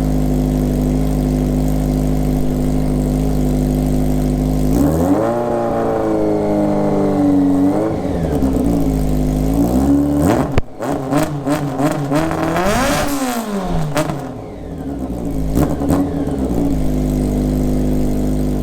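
Honda Nighthawk S inline-four engine running through a hand-built exhaust with a disc-type muffler: idling steadily, then revved up and down several times with quick sharp throttle blips in the middle, before settling back to idle.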